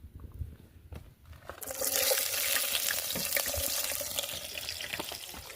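Food dropped into hot oil in a cooking pan, sizzling loudly all at once about a second and a half in, then slowly settling into a steady frying crackle.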